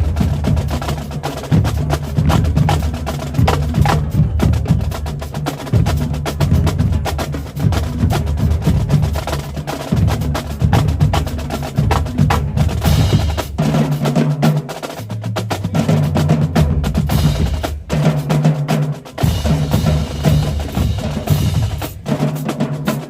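Marching drumline playing: rapid, dense snare strokes over tuned bass drums that step between several low pitches, with the pattern changing a few times.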